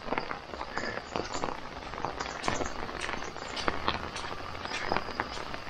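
Footsteps on a waterlogged lawn, with many light irregular ticks and drips.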